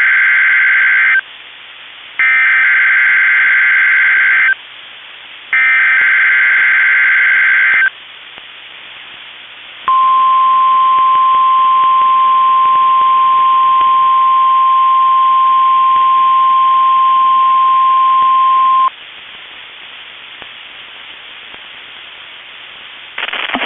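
NOAA Weather Radio emergency alert signals from transmitter KEC65. First come the last second of one burst and then two more SAME header data bursts, each a loud, harsh digital buzz lasting about two and a half seconds with short pauses between. Then, about ten seconds in, the 1050 Hz warning alarm tone sounds as one steady single-pitch tone for about nine seconds and cuts off, leaving faint radio hiss.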